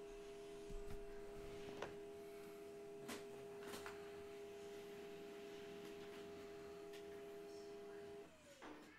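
A steady mid-pitched tone that holds, then slides down and stops near the end, with a few faint clicks over it.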